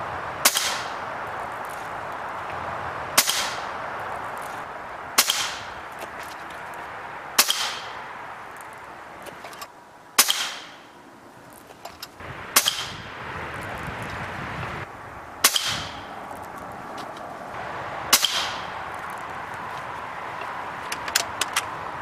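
Air Venturi Avenger .25 caliber regulated PCP air rifle firing eight shots, one every two to three seconds, each a sharp crack with a short ring after it. A few light clicks follow near the end.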